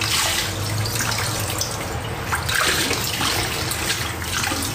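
Tap water running into a stainless-steel kitchen sink as something is washed by hand.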